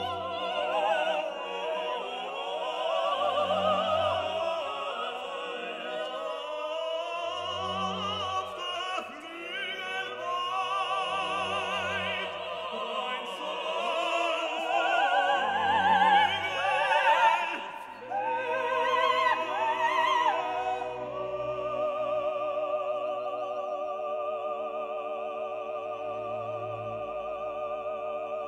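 Background music: an operatic voice singing with strong vibrato over an orchestra, with a low note sounding about every four seconds. The voice stops about two-thirds of the way through and the music settles into a long held chord.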